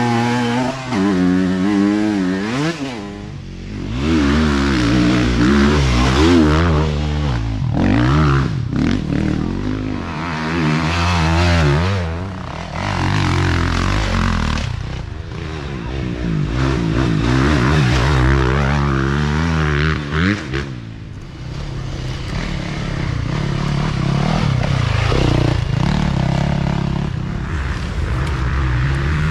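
Dirt bike engine revving hard and repeatedly, its pitch climbing and dropping with the throttle, briefly easing off twice as the throttle is rolled back.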